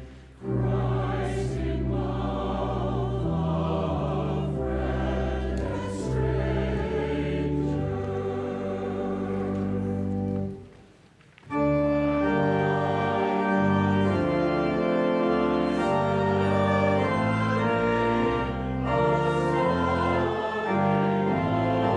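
Voices singing a hymn with church organ accompaniment. The music stops for about a second around ten and a half seconds in, then the organ plays on alone with sustained chords.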